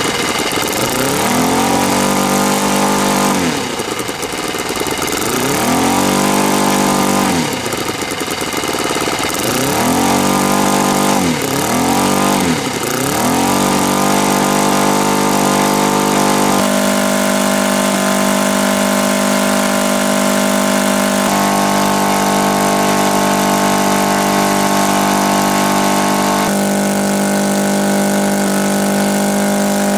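NGH GF60i2 60 cc inline twin-cylinder four-stroke gasoline model-aircraft engine running on a test stand with a two-blade propeller. It is revved up and back down four times in the first half, then held at steady speeds that step to a new setting about three times.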